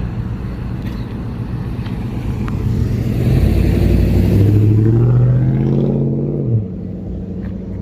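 A car engine running, then a louder engine revving up from about three seconds in, its pitch climbing, until the revs cut off sharply near the end.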